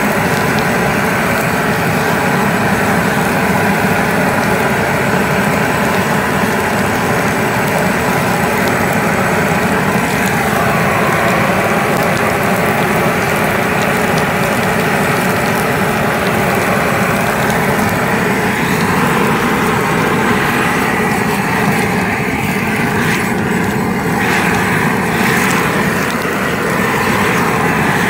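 Propane weed torch running steadily, its flame jet blasting into a cast iron skillet of ribeyes and butter, with a loud, continuous rushing noise.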